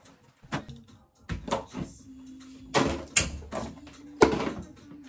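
A series of clicks and knocks from small objects being handled, about half a dozen, the loudest near the end.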